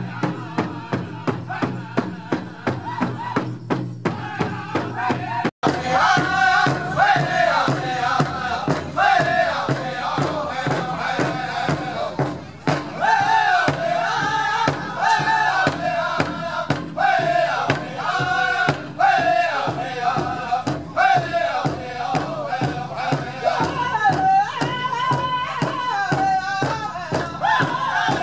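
Powwow drum group: several men striking a large powwow drum together in a steady even beat and singing, the high sung lines over the drum from about six seconds in. About five and a half seconds in, the sound drops out for an instant and a second drum group takes over with the same beat and singing.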